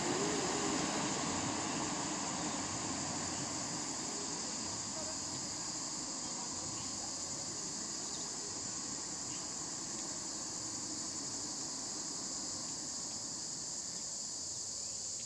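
Steady, high-pitched drone of an insect chorus in roadside scrub, unbroken throughout, over a faint low rumble.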